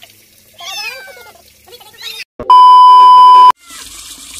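A cat meowing in two falling cries while being bathed, then a loud, flat beep tone about a second long, the loudest sound here. Near the end, water starts running.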